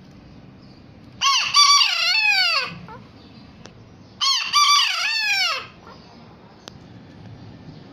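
A rooster crowing twice, each crow about a second and a half long, rising at the start and falling away at the end.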